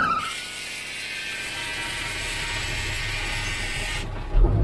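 Steady hiss of diesel fuel pumped through a nozzle into the semi-truck's tank, cutting off suddenly about four seconds in, then a low thump.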